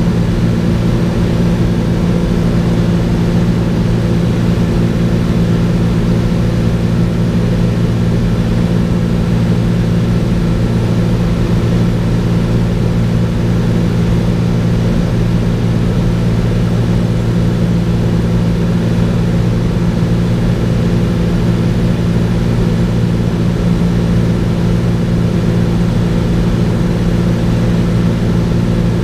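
Cessna 210's piston engine and propeller running steadily at cruise, a constant drone heard from inside the cabin.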